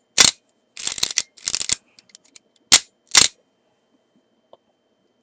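Kiev-17 SLR camera's shutter and mirror mechanism cycled by hand: sharp mechanical clacks in pairs, with a longer rasping stretch about a second in.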